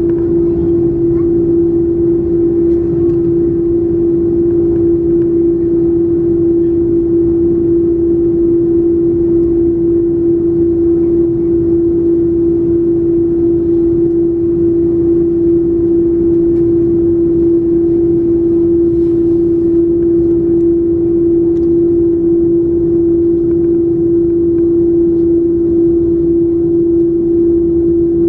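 Steady cabin drone of an Airbus A330-300 on the ground, its General Electric CF6-80E1 engines at idle, heard from a window seat behind the wing. One strong, even humming tone sits over a low rumble and does not change.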